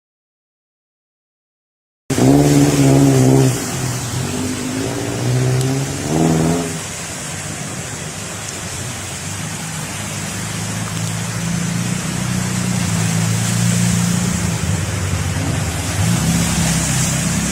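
An engine running, its pitch rising and falling, over a steady hiss. It starts suddenly about two seconds in, after silence.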